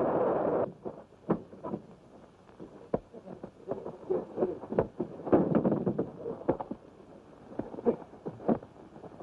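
Steady running noise of a train cuts off under a second in. It gives way to the scattered sharp thumps and scuffling of a fistfight: punches landing and bodies struggling, with the busiest patch around the middle.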